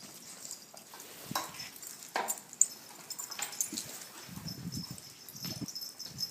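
Dogs moving about and playing together: scattered scuffles and clicks, with short low rough dog noises around the middle.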